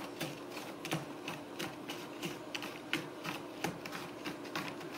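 Cat's claws raking a corrugated cardboard scratcher in short, irregular scratching strokes, about two or three a second, over a faint steady hum.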